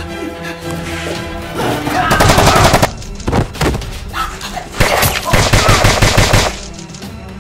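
Rapid automatic gunfire sound effect in two bursts, one about two to three seconds in and a longer one from about five to six and a half seconds, over background music.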